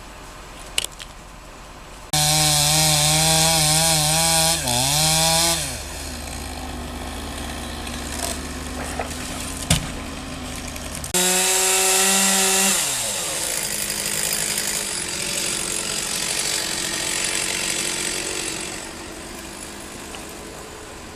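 Two-stroke chainsaw cutting wood at high revs, in two stretches that each start abruptly, about two seconds in and again about eleven seconds in. The engine pitch wavers and drops several times as the saw loads and lets off. After the second stretch, a lower steady running noise carries on until near the end.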